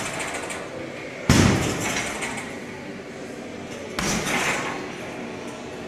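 Two hard strikes land on a hanging heavy punching bag, one about a second in (the louder) and one about four seconds in, the second a high roundhouse kick; each is a sudden thud that dies away over about a second.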